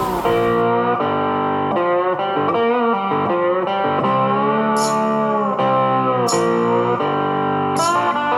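Background music led by guitar, with held notes that change every second or so.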